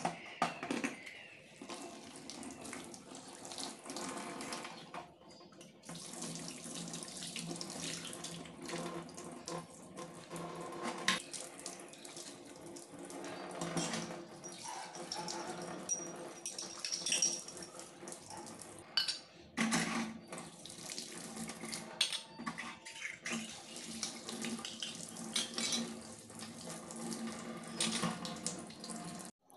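Kitchen tap running into a stainless steel sink while brass vessels are washed and rinsed, with frequent clinks and knocks of brass against the steel.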